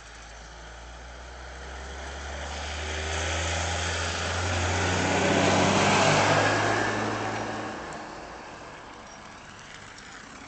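A motor vehicle driving past: its engine hum and tyre noise grow louder to a peak about six seconds in, then fade away.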